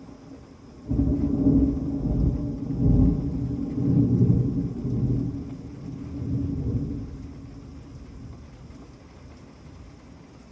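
Thunder breaks suddenly about a second in, rumbles in several rolling waves, and dies away over the next several seconds, over the steady hiss of heavy rain.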